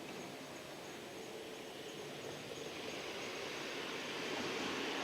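Steady hiss of radio static from a receiver tuned to the municipal disaster-prevention radio channel, growing louder toward the end.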